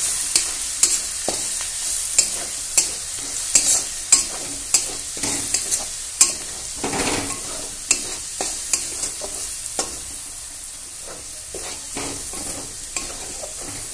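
Garlic paste and a dried red chilli sizzling in hot mustard oil in a metal kadai, while a spatula stirs and scrapes the pan bottom in frequent sharp clicks. The scraping thins out and the sizzle softens a little in the last few seconds.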